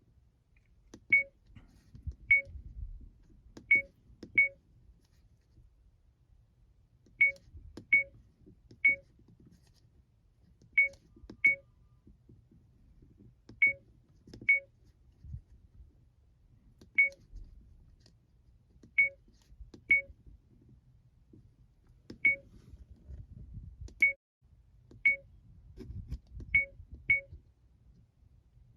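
70mai A200 dashcam's button-press beeps: about nineteen short, high beeps at uneven intervals, one for each press as its settings menu is stepped through.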